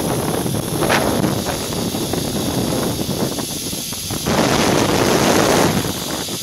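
Wind rushing and buffeting on the microphone during a zip wire ride, growing louder for about a second and a half a little past the middle.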